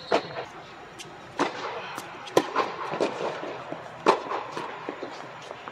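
Tennis rally: sharp pops of racket strikes on the ball and ball bounces on a hard court, roughly one a second, echoing in a large air-supported tennis dome.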